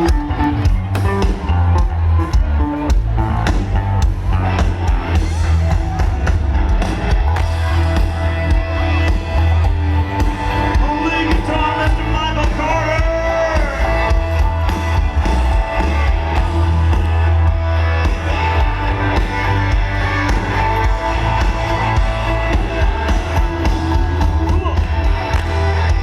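Live country-rock band playing loud through a concert PA, with a pounding bass and drum beat and guitar, heard from far back in an outdoor crowd.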